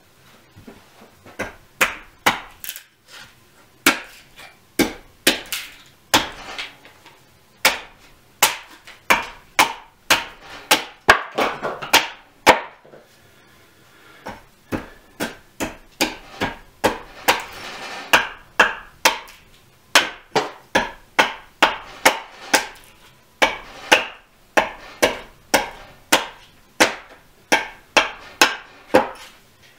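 Hultafors axe hewing a block of raw birch on a chopping stump: repeated sharp chops in runs of nearly two a second, with a few short pauses.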